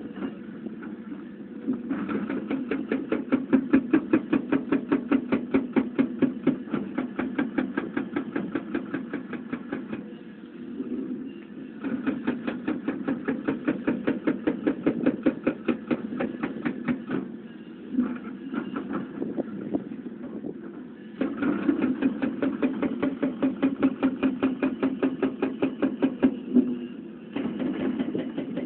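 Tracked excavator working with its diesel engine running. Four bursts of rapid, even knocking, each lasting several seconds, break up short quieter spells of engine hum.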